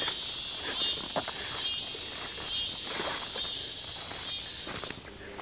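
Evening insect chorus: a high-pitched rasping drone that pulses in uneven beats and cuts out about five seconds in, with faint rustles and ticks underneath.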